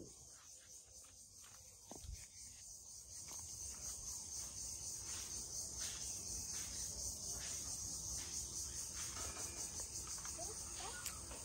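A steady, high-pitched chorus of insects trilling with a rapid pulse, growing a little louder about two seconds in. A single soft knock about two seconds in.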